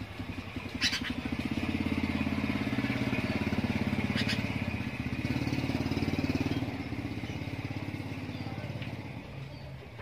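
An engine running steadily close by, its pulsing drone the loudest sound, easing off over the last few seconds. Two short sharp high notes, about a second in and again at about four seconds, from the caged sooty-headed bulbul.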